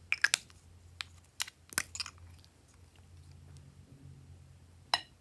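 Small scissors snipping through soft waxy lipstick-style sticks: a quick run of crunchy snips in the first two seconds, then one more near the end.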